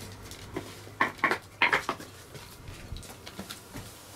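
Handling noise from a T-shirt on a hanger being held and turned: a couple of quick rustling clatters about a second in, another cluster just after, then faint small knocks over a low room hum.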